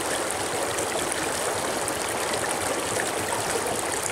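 Steady rush of running water from a stream or spring.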